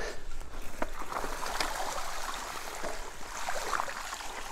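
Mountain bike tyres riding through a large puddle, water splashing.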